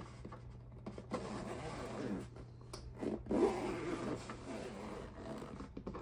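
Zipper of a soft-shelled diamond-painting storage case being pulled open in two long strokes, about a second in and again near the middle, with the rubbing of the case as it is handled.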